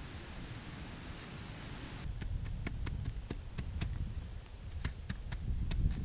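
A machete's blade knocking and cutting against a length of green bamboo: an irregular run of light, sharp clicks from about two seconds in, after a steady hiss.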